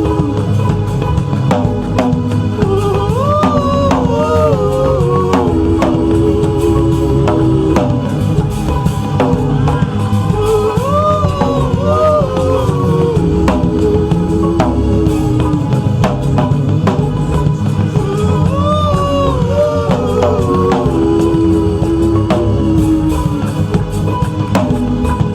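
Loud gospel music with a steady drum beat and a singing or lead melodic line that repeats in phrases.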